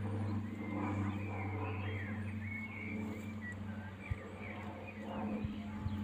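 Birds chirping in short, quick rising and falling calls over a steady low hum, with a single sharp click about four seconds in.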